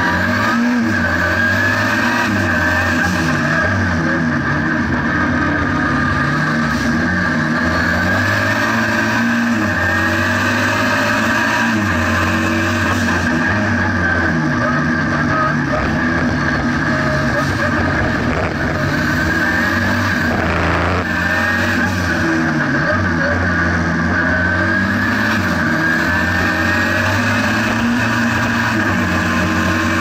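Renault 5 GT Turbo's tuned 1.4-litre turbocharged four-cylinder engine, heard from inside the cabin, driven hard: the revs climb and drop again and again through gear changes and lifts.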